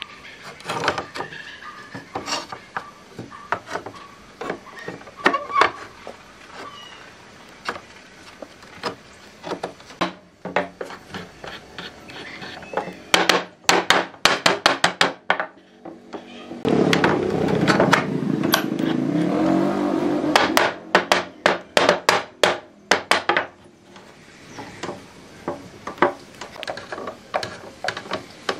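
Hand-tool work on wood: irregular knocks and taps, with fast runs of strikes about halfway through and again a little later, and a few seconds of denser, steadier noise between the two runs.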